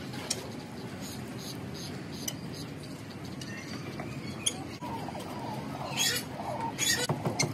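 Light knocks and clinks from wooden poles being handled, over a steady outdoor background; from about five seconds in, bird chirps and calls join, loudest twice near the end.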